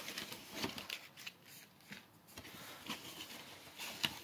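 Cardboard shipping box being handled and turned: faint rustling and scraping with a few light clicks and knocks, the sharpest one near the end.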